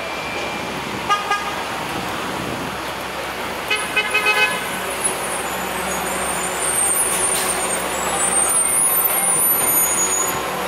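Steady city street traffic noise with short vehicle-horn toots: a couple about a second in and a quick run of four or five around four seconds in.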